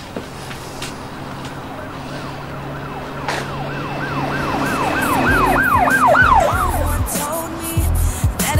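Emergency vehicle siren sweeping up and down in quick repeated cycles, starting about two seconds in and growing louder before fading near the end, over the low rumble of city traffic.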